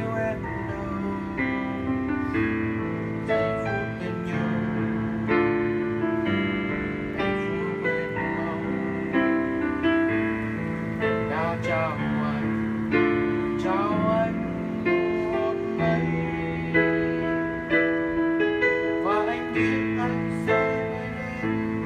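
Piano playing a slow ballad with sustained chords and a melody. A second melody line that slides and wavers in pitch comes in a few times partway through.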